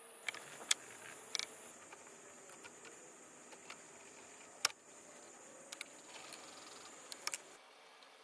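Quiet hands-on work: scattered small clicks and knocks, with a few brief rubbing sounds of a part being wiped down after a spray of glass cleaner.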